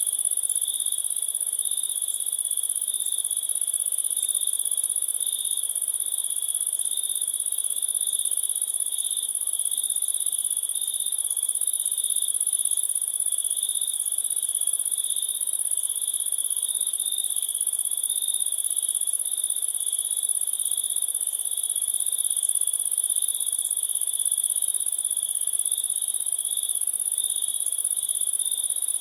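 A chorus of crickets chirping without a break, in two high-pitched layers at different pitches: one lower and one much higher.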